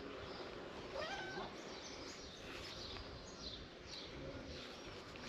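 A cat meows once, about a second in, over steady background noise. Small birds chirp briefly and high-pitched in the background.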